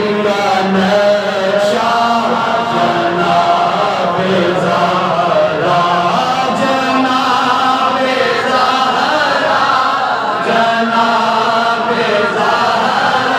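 A man's voice chanting a manqabat, an Islamic devotional song, into a microphone, in long held notes that slide and waver in pitch.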